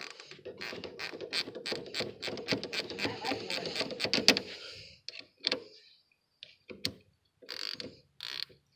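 Ratchet wrench clicking rapidly, tightening the bolt on the steering shaft's universal joint at the steering box, for about five seconds, then a few separate clicks.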